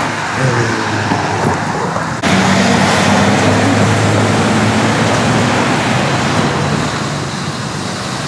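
Street traffic noise: cars running by on a road in a steady wash of sound, with a low engine hum, which grows abruptly louder about two seconds in.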